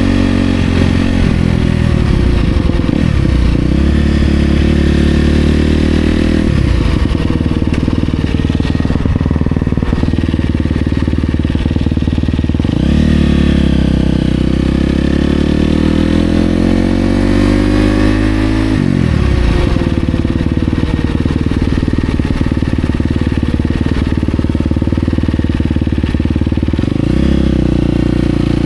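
Dirt bike engine running while riding. The engine note falls and climbs again several times as the throttle is rolled off and on through the ride.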